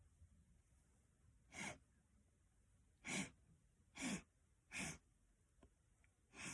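A girl's short, sharp gasping breaths, five of them at uneven gaps, each about a quarter second long.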